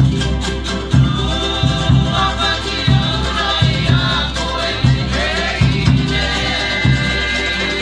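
Cook Islands string-and-drum band playing live: strummed guitars and ukulele over a steady drum beat of about three thumps every two seconds, with voices singing along.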